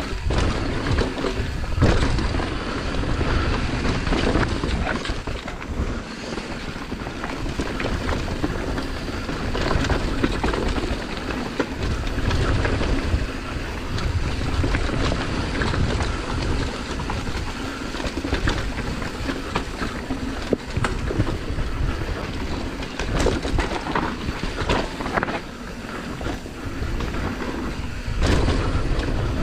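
Downhill mountain bike ridden fast on a dirt trail: wind buffets the microphone over the tyres running on dirt, and the bike rattles with frequent sharp knocks over roots and rocks.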